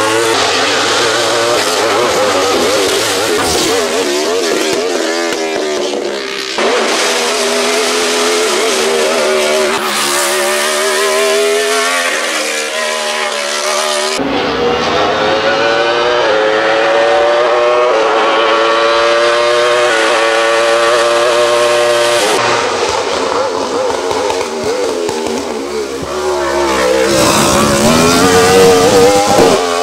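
Wolf GB08 Thunder sports prototype race car's engine at full throttle, accelerating from the start line and up through the gears, its pitch rising and then dropping at each upshift. The sound is heard in several separate passes and is loudest near the end as the car passes close.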